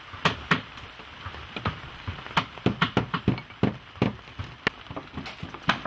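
Irregular taps and rasps, about three or four a second, of coir rope being drawn and worked tight with a metal spike through the stitch holes of a wooden boat hull.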